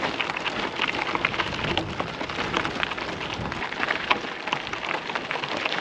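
Bicycle tyres crunching over a loose gravel track: a dense, even crackle of small irregular clicks.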